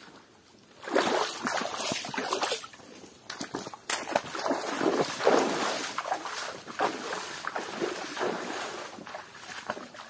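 Irregular splashing and sloshing of water in uneven bursts, starting about a second in and easing off near the end.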